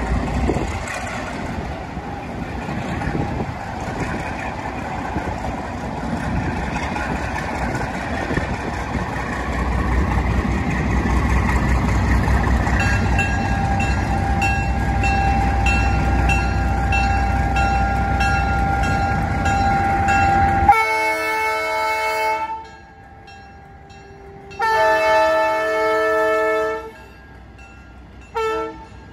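Diesel freight locomotive approaching at low speed, its engine and wheel rumble growing louder, then its multi-chime air horn sounding a chord in two long blasts and a short one, the start of the standard grade-crossing signal.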